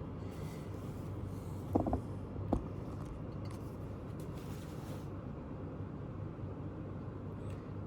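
Fellowes Spectra A4 laminator running with a steady low hum, with two short clicks about two seconds in.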